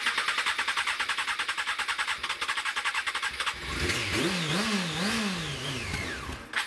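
Honda CBR600's fuel-injected inline-four motorcycle engine turning over on the electric starter for about three and a half seconds. It then fires and is revved up and down about three times before dying away near the end. It is running on sprayed-in carburettor cleaner, because fuel is not reaching the engine.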